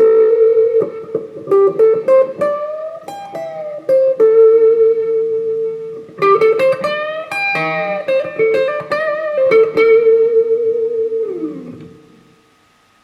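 Gibson Les Paul Custom electric guitar played through a Bugera V5 tube amp on a crunch setting: picked single-note phrases with held notes, string bends and vibrato. About eleven seconds in, a note slides downward and the playing dies away, leaving faint amp hiss and a steady high hum.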